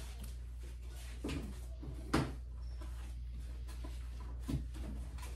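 Quiet handling sounds over a steady low hum: a sharp click or knock about two seconds in, with fainter taps before and after, as a comic book is picked up and handled.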